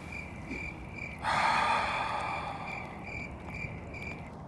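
Insects, likely crickets, chirping in short even pulses about three times a second, with a louder rushing hiss that starts suddenly about a second in and slowly fades.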